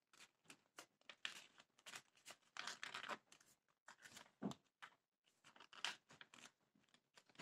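Faint crinkling and rustling of a folded sheet of A4 paper as its two ends are tucked into each other by hand, in short scattered crackles.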